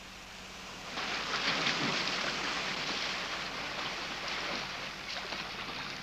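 Rushing, splashing sea water, as of surf or a wash of waves, starting suddenly about a second in.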